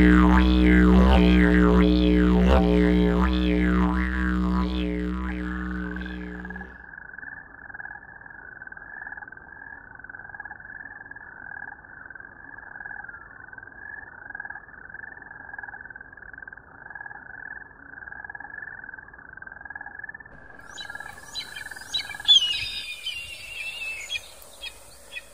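Didgeridoo music with a deep drone and rising and falling wails, fading out over the first six seconds or so. Then a steady, evenly repeated chirping runs for about fifteen seconds. Near the end come loud, shrill red-tailed hawk screams.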